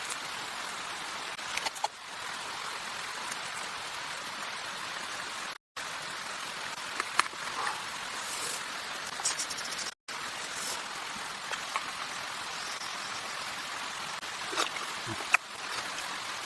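Steady hiss of water, with a few faint scattered clicks and taps; it cuts out abruptly for a split second twice.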